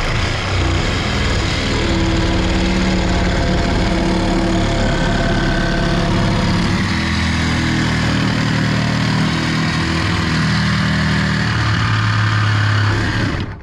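Cordless reciprocating saw running without a break, its blade cutting through the nails that hold a cabin door shut. The motor's pitch shifts up and down as the blade bites, and it cuts off suddenly at the end.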